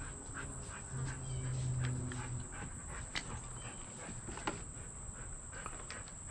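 Crickets chirring steadily and high, with a low drawn-out hum for about a second and a half starting about a second in, and a few light clicks.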